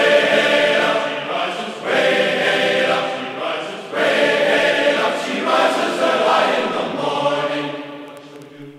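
Choral music: a choir singing slow, sustained, chant-like phrases that swell and break about every two seconds, fading down near the end.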